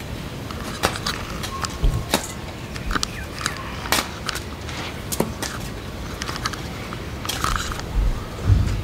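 A small hard-plastic toy monster truck being handled and turned over in the hands: scattered small plastic clicks and knocks over a steady background hiss, with a dull thump near the end.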